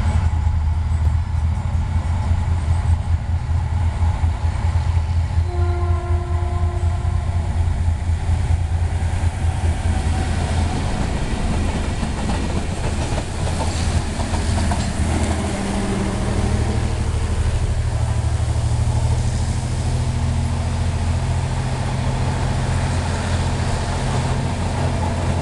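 EMD G22CU diesel-electric locomotives passing, with a steady low engine rumble throughout. A single horn blast of about two seconds sounds around six seconds in. After that comes the clatter of wheels over the rails as the freight wagons and then the passenger coaches go by.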